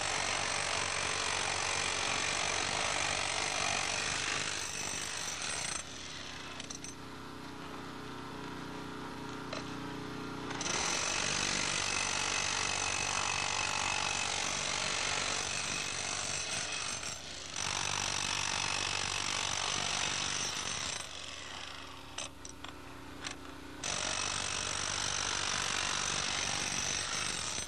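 Handheld jackhammer breaking into sandstone in long runs. It stops about six seconds in, starts again near ten seconds, stops briefly around seventeen seconds and again for a few seconds after twenty, then runs again to the end. A quieter steady hum fills the gaps.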